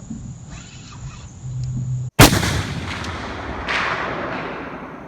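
A single loud boom about two seconds in, sharp at the start and dying away in a rumble and hiss over about three seconds, with a second swell of hiss a second and a half later.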